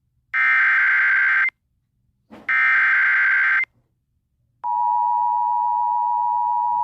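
Emergency Alert System SAME header bursts, the encoded alert data: two identical bursts of about a second each, the last repeats of the three-times-sent header. After about a second of silence the steady EAS attention tone starts about four and a half seconds in and holds without change.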